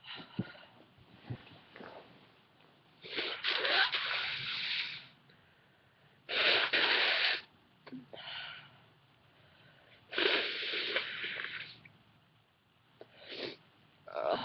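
A woman's sneezes and breathy, gasping build-ups, induced with white and black pepper. Three loud bursts, each a second or two long, come about three, six and ten seconds in, with shorter breaths between them.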